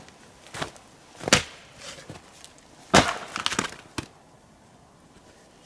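Firewood being chopped with an axe: about four separate blows, the loudest a little past the middle, followed by a short crackle of wood splitting.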